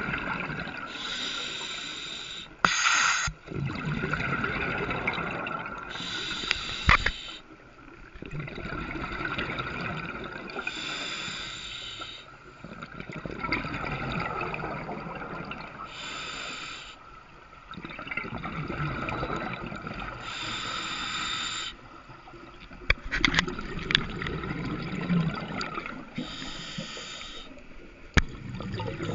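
Scuba regulator breathing underwater: a hiss on each inhale alternating with bubbling, gurgling exhales, about one breath every four to five seconds. A few sharp clicks come in the second half.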